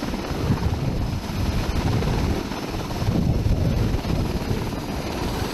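Mil Mi-26 heavy-lift helicopter with its eight-blade main rotor and twin turboshaft engines running as it settles onto its wheels: a loud, pulsing low rumble of rotor and engine noise.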